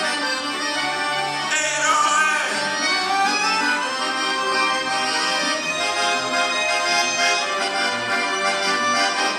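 Piano accordion playing a tune over held chords.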